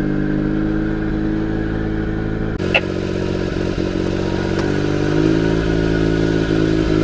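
Japanese kei mini truck's small 660cc three-cylinder engine idling steadily, heard from inside the cab, with a single sharp click a little under three seconds in. The idle rises slightly about two thirds of the way through.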